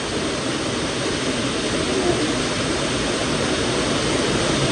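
Steady rush of running water in a cold plunge pool, an even hiss with no breaks.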